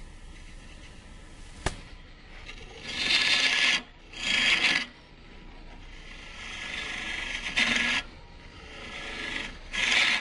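Turning tool cutting a green-wood goblet spinning on a Jet Mini lathe: four bursts of scraping hiss as the tool bites in and eases off, over a steady low hum. A single sharp click comes a little under two seconds in.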